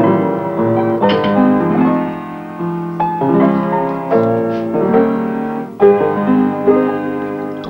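Background piano music, several notes sounding together.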